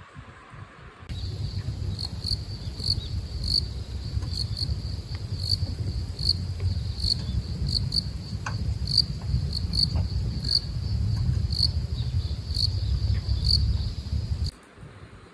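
An insect in the grass chirping in short, high chirps, about one and a half a second at uneven spacing, over a steady low rumble. Both start about a second in and cut off near the end.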